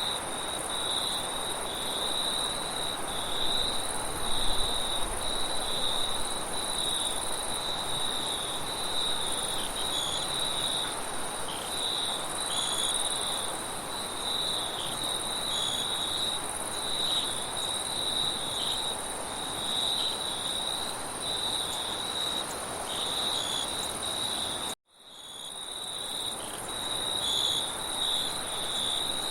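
Crickets chirping in a steady, pulsing chorus, with a higher steady trill above them and a wind hiss beneath. About 25 seconds in, the sound cuts out abruptly and fades back in.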